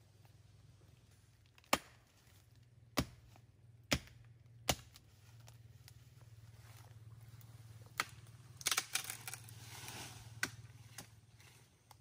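Machete chopping into a small tree: four sharp chops about a second apart, then after a pause a quick run of chops and a rustle of leaves as the cut branch comes down.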